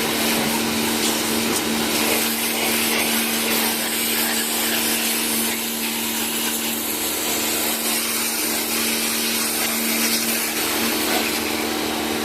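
Portable electric high-pressure washer running steadily: a constant motor-and-pump hum under the hiss of the water jet spraying.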